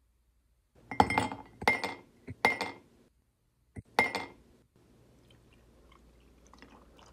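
Ice cubes dropped one by one into a ceramic mug, making four sharp clinks with a brief ring, under a second apart. Near the end, milk is poured faintly over the ice.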